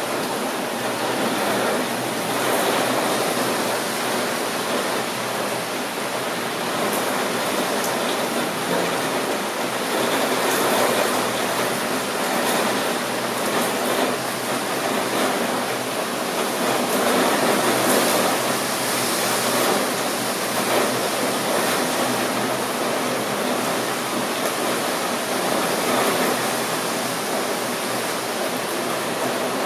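Steady rain falling: an even hiss with faint scattered drop ticks, swelling and easing a little every few seconds.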